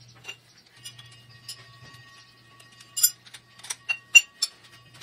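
Steel parts clinking and knocking against each other and the cast-iron table as a gear's clamp plate and nut are taken off the slotting machine's rotary table. There are several sharp clinks, loudest about three and four seconds in, over a steady low hum.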